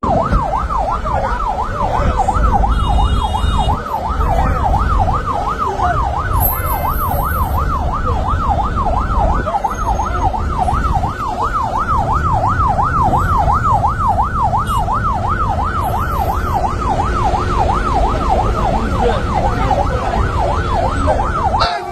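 Electronic siren in a fast yelp, its pitch swooping up and down a little over twice a second without a break, over a heavy low rumble.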